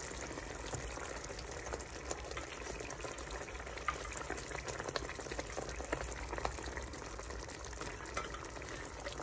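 Masala gravy boiling in a pan with raw marinated chicken pieces just added. It makes a steady bubbling sizzle with many small scattered pops.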